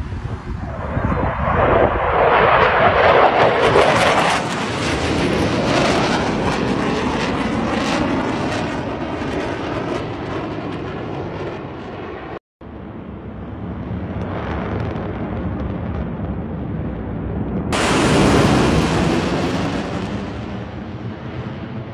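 Jet engine roar from F/A-18 Super Hornets flying past. A loud pass swells a few seconds in and slowly fades. The sound breaks off abruptly near the middle, then another jet pass builds to a peak about three-quarters of the way through.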